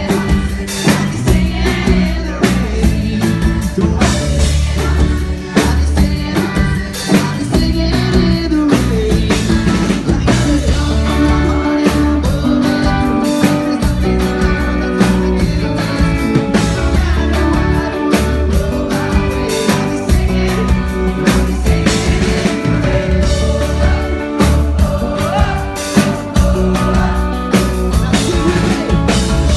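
Pop-punk band playing a loud live set: electric guitar, bass guitar and drum kit, with singing.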